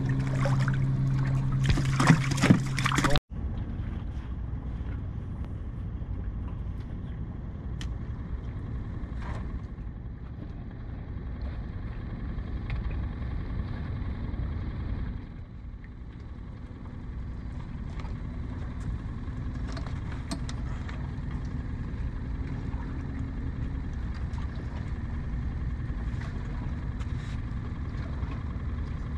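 Open-water boat ambience: a steady low rumble of wind and water around a small fishing boat, with faint scattered ticks. A louder stretch with a steady low hum opens the sound and cuts off abruptly about three seconds in.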